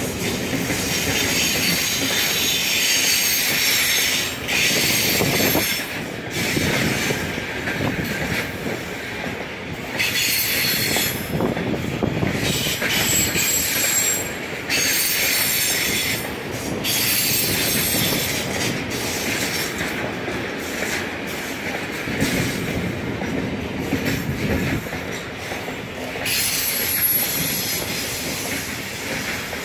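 Container freight train rolling past, its loaded wagons rumbling over the rails, with a high wheel squeal that comes and goes every second or two.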